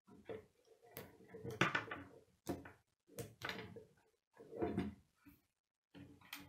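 Plastic K'nex pieces clicking and clattering as rods are snapped into connectors on a model frame, in several short bursts with brief silences between.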